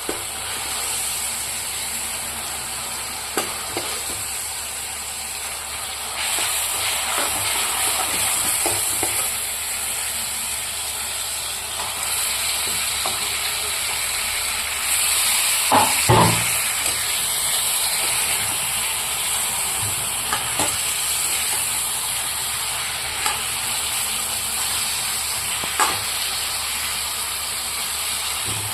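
Food sizzling as it fries in a pan, stirred with a utensil that clicks against the pan now and then. A louder knock comes about sixteen seconds in.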